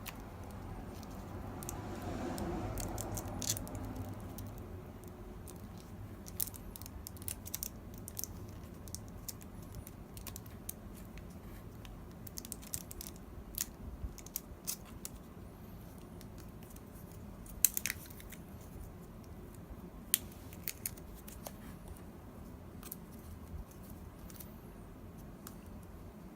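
Scattered small clicks and taps of hands handling the iMac's internal cables and connectors while reconnecting the display's ribbon cable, with a brief rustle of handling a couple of seconds in and two sharper clicks about two-thirds of the way through.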